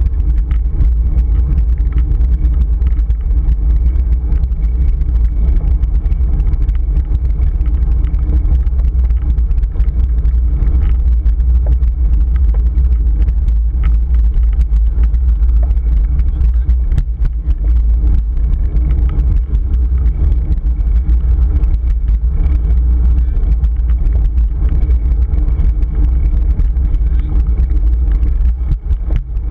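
Wind buffeting a GoPro Hero 3's microphone on a moving bicycle: a loud, steady low rumble.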